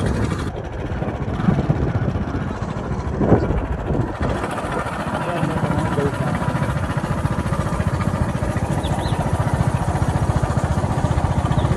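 Motorcycle engine running steadily while riding along a road, with wind noise over the microphone.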